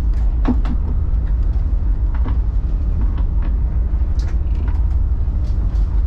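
Steady low rumble of a tug's engines heard inside the wheelhouse, with scattered short knocks and rattles.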